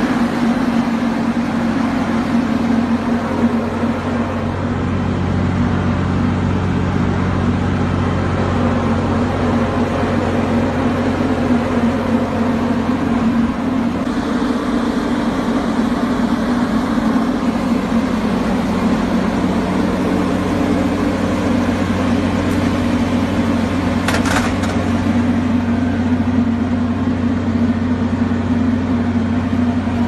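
Steady low mechanical hum of a running machine, its pitch unchanging throughout, with one brief crackle about three-quarters of the way through.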